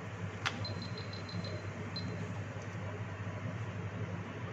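Hioki 3280-10F clamp meter's continuity buzzer giving short, high beeps as the test probes make and break contact: a sharp click about half a second in, then a quick string of about six beeps and one more about two seconds in. A steady low hum runs underneath.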